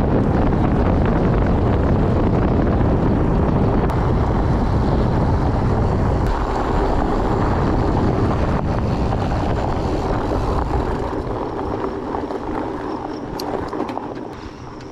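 Wind buffeting the microphone at riding speed, over the rumble of 4.8-inch fat-bike tyres rolling on a dirt and gravel track; it eases and gets quieter in the last few seconds as the bike slows.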